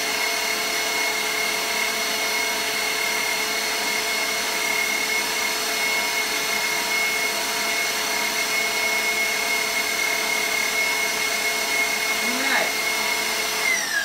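KitchenAid stand mixer motor running steadily, driving the pasta press attachment as it extrudes spaghetti: a loud whine that slides down in pitch near the end as the motor winds down.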